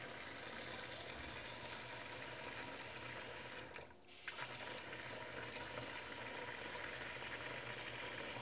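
Water running steadily from a kitchen tap into a stainless steel sink around standing bottles, with a brief dip in level about four seconds in.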